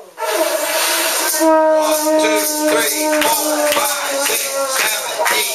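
Conch shell blown in one long, steady note that stops near the end, over loud crowd noise and shouting.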